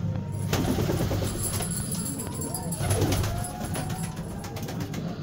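Satinette fancy pigeons cooing in short arching calls a few times midway through, over scattered sharp clicks.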